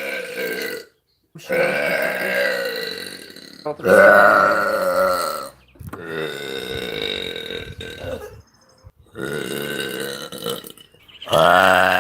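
A woman belching: a run of about five long, drawn-out burps, one after another with short breaks between them.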